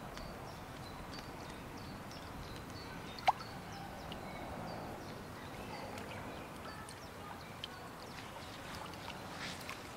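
Open-air lakeside ambience: a steady low rush of wind and water with scattered short, high bird chirps, and one sharp click about three seconds in.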